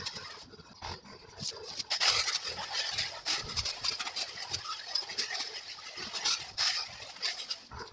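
Hedge foliage and bramble stems rustling and crackling as they are pulled out and pushed through by hand, with many short sharp snaps among the leaf noise.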